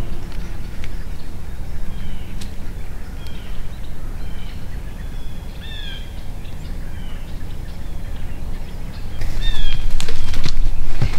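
Wind buffeting the microphone with a steady low rumble, while a songbird gives short downward-slurred chirps several times. Near the end comes a louder stretch of noise with a couple of sharp clicks.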